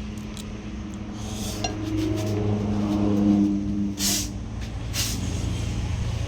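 A motor vehicle passing by, its engine swelling to a peak about halfway through and then fading, with a few short sharp clicks over it.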